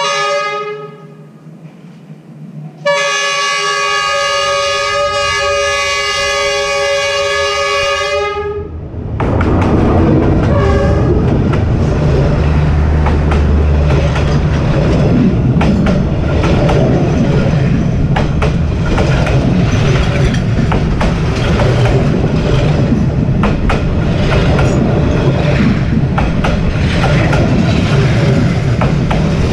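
Train horn gives a brief blast, then one long steady blast of about five seconds. From about nine seconds in the train rolls directly over the rails at ground level with a loud rumble and the clatter of its wheels on the rail joints.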